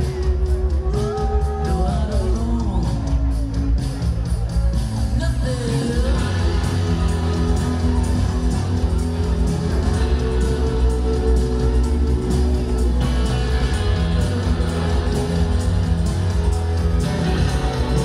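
Live band playing, with a heavy, steady bass and electric guitar. A singing voice slides up and down between notes a few times in the first six seconds.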